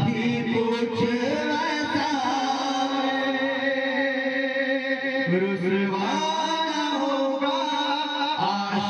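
Male voices singing a naat through a PA system, drawing out long, wavering melodic notes.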